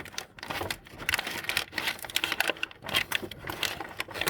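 Jammed paper sheets crinkling and rustling in short, irregular rustles as they are pulled by hand from inside a laser printer.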